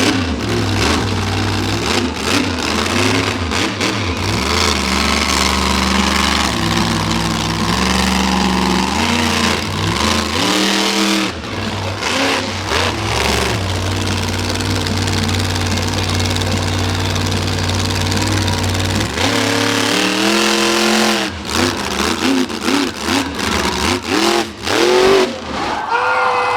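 Monster truck engine running hard under heavy throttle, then easing off and giving several quick revs that rise in pitch, about two-thirds of the way in and again near the end.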